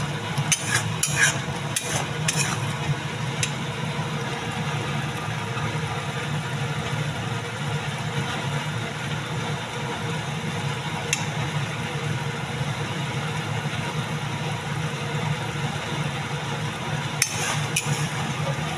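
Metal spatula scraping and clicking against an iron kadhai as a curry is stirred, in a few quick strokes at the start and again near the end. Underneath runs a steady low hum with a sizzling hiss.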